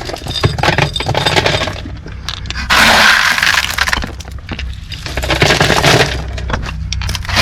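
Small gravel clattering as it is scooped and poured in around rocks: a rattle of many small stones, with denser pours about three seconds in and again around six seconds. A low steady hum runs underneath.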